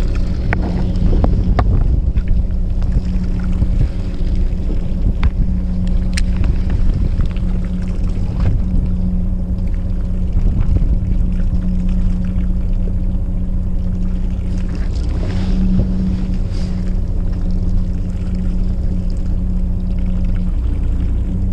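A fishing boat's engine running steadily with a low hum. A few light clicks come in the first several seconds.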